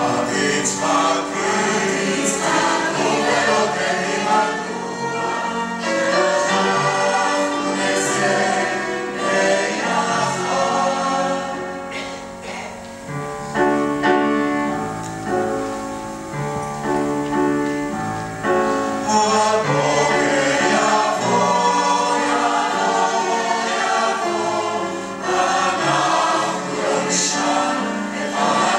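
Mixed choir of men and women singing a Hebrew song in five-part harmony, accompanied by a bowed cello.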